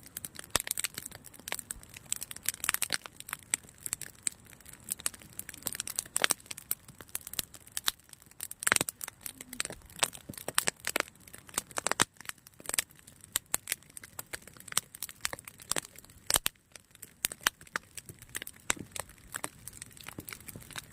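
Wood campfire crackling: irregular sharp pops and snaps several times a second, with a few louder cracks of burning wood.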